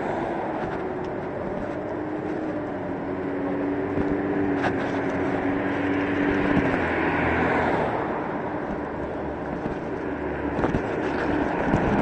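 Traffic and road noise heard from an electric scooter moving along a city street. A steady hum runs under it for several seconds and drops away about six and a half seconds in.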